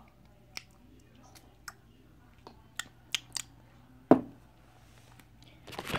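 A plastic toy sippy cup being handled by hand: a few light clicks and taps, then one sharp knock about four seconds in.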